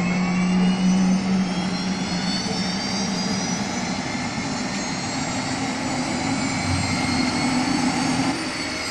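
Bell 206 helicopter's Allison 250 turboshaft engine starting up, a whine slowly rising in pitch as the turbine spools up and the main rotor begins to turn.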